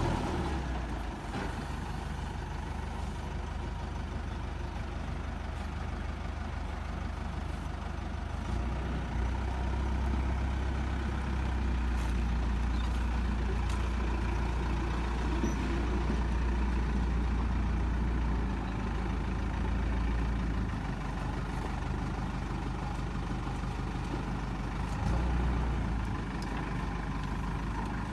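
Heavy diesel engine running steadily, getting louder and deeper for about ten seconds in the middle, as when the machine is put under load, then easing back.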